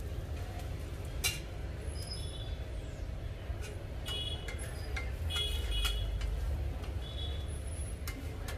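Metal cooking utensils clinking and ringing several times, with a couple of sharp clicks, over a steady low rumble.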